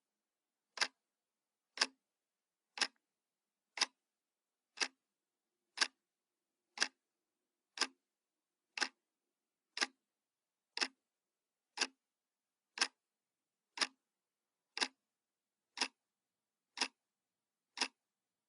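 Clock ticking sound effect: one sharp tick every second, evenly spaced, with dead silence between the ticks.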